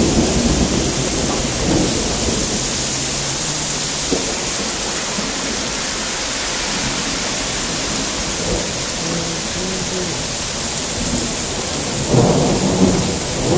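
Steady hiss of rain mixed with wet snow falling, with louder rumbling bursts at the very start and again about twelve seconds in.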